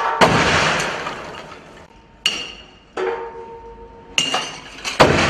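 Shock-table test on a half-scale stone-masonry house: a series of about five heavy metallic bangs as the table is struck. Some bangs ring on with a clear tone, and each is followed by a noisy clatter that dies away.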